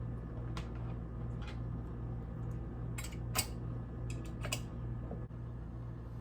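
Scattered light clicks and clinks of metal reloading-press parts being handled, the sharpest about three and a half seconds in, over a steady low hum.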